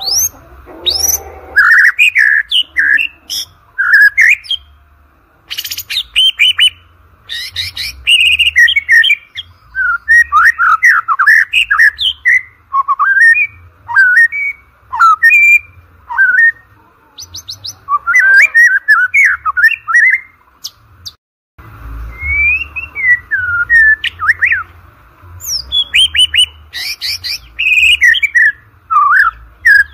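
White-rumped shama (murai batu) singing a loud, varied song of whistled phrases and rapid trills in bursts with short pauses between them.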